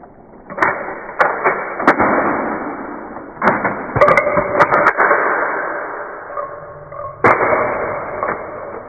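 Plastic transforming toy battle cars released across a tile floor: a rolling rumble from the wheels, broken by sharp plastic clacks as they run over and snap up the flat discs and spring apart. The rolling starts up three times and fades each time.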